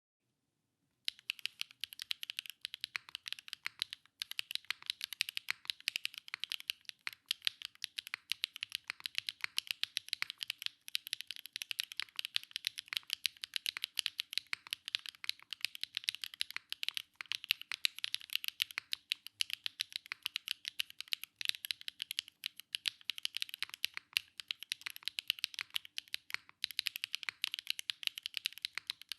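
WingTree 277 mechanical keyboard being typed on in a steady run of rapid keystrokes, starting about a second in, with a brief pause near the end.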